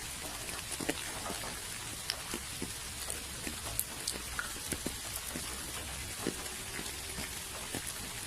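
Steady rainfall: an even hiss with many separate drops ticking irregularly on a surface close by.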